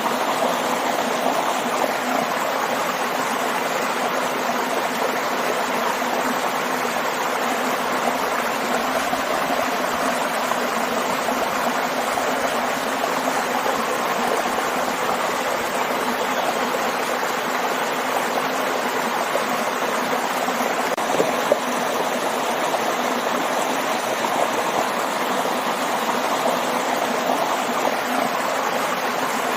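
Waterfall and stream: water rushing and splashing steadily, with a small click about two-thirds of the way through.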